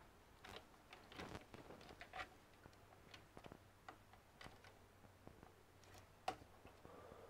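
Faint, irregular clicks and taps of gloved hands handling cables and plastic connectors inside an open desktop PC case, with the sharpest click a little before the end.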